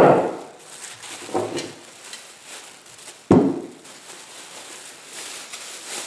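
Plastic shopping bag rustling as spray cans are taken out and set down on a workbench: a sharp knock at the start, a lighter one about a second and a half in, and another sharp knock about three seconds in.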